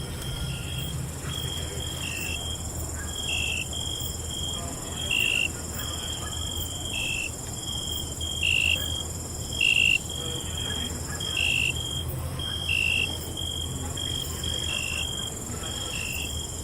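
Night insects, crickets, chirping: short repeated chirps about once a second, some dipping in pitch, over a continuous high-pitched insect trill and a low steady hum.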